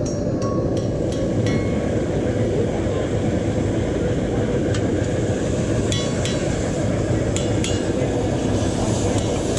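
A steady low mechanical rumble, with light metallic clinks and taps scattered irregularly through it.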